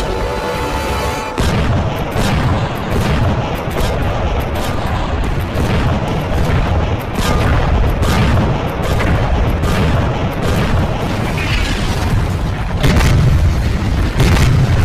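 Explosion and gunfire sound effects over background music. Music alone at first; from about a second and a half in comes a rapid, irregular run of booms and shots, louder near the end.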